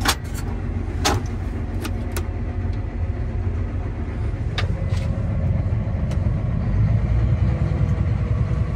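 John Deere tractor engine running steadily, heard from inside the cab, with a few sharp clicks in the first seconds.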